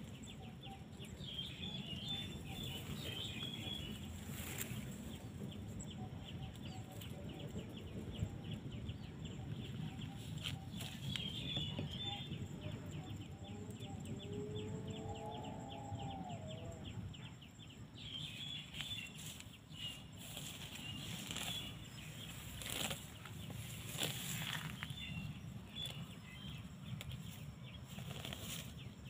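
Dry sticks and grass crackling and rustling as a stick snare trap is set in the ground by hand, over a steady low rumble of wind on the microphone. Faint high chirps come and go.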